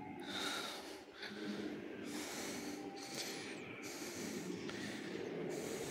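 Breathing close to the microphone: repeated hissing rushes of air, roughly one a second.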